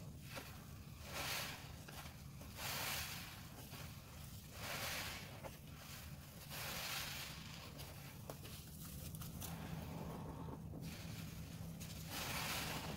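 Dense sponges being squeezed in thick foamy pine-cleaner suds: wet squelching and crackling foam, one squeeze every second and a half to two seconds, softer in the later part and with one more strong squeeze near the end.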